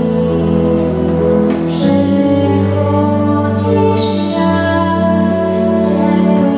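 A woman singing with organ accompaniment: the organ holds long chords over sustained bass notes while her voice carries the melody above.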